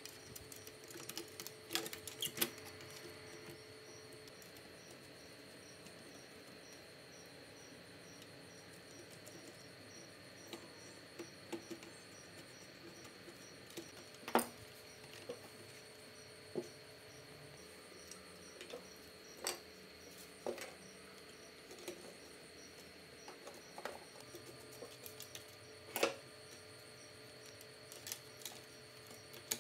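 Scattered small clicks and light knocks of a cassette mechanism and wiring being handled and fitted into a Sony CK-11 CD radio cassette's plastic housing. A cluster of taps comes at the start, and the sharpest knocks fall about halfway and near the end.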